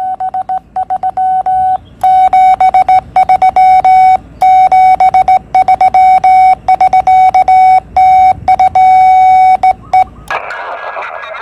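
Morse code sent by hand on a straight key, heard as the Yaesu transceiver's CW sidetone: one steady beep switched on and off in dots and dashes. Near the end the keying stops and the receiver's hiss comes up.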